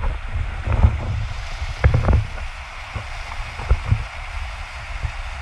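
Mountain creek water rushing over boulders as a steady hiss, under a low rumble on the microphone. Several sharp knocks break through it, the loudest about a second in and again about two seconds in.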